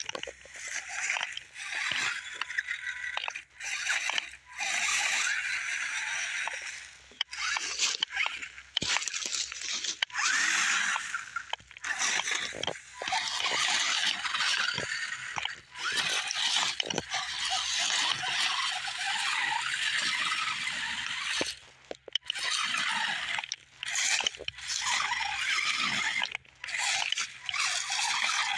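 Radio-controlled rock crawler driving over rock in stop-start bursts: its electric motor and gears whirring while the tyres scrape and slip on the rock, cutting in and out every few seconds.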